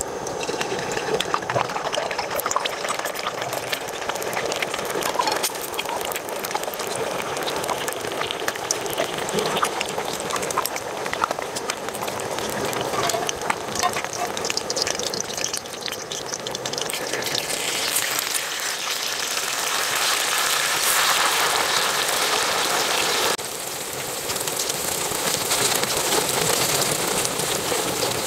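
Eggs frying in hot oil in a stainless steel wok on a gas camping burner, a steady crackling sizzle. The sizzle grows louder and brighter past the middle, then drops suddenly a few seconds before the end.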